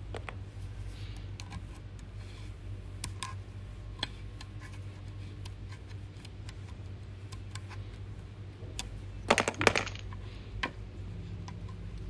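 Light clicks and scrapes of a plastic tool and fingers working in a shower head's threaded inlet while its washer is checked, with a quick flurry of louder clicking a little past the middle. A steady low hum runs underneath.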